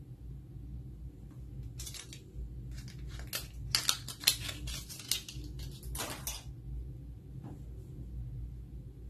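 Plastic wrapper of a First Response pregnancy test crinkling and rustling as it is torn open and the test stick is pulled out, with a burst of sharp crackles about four seconds in.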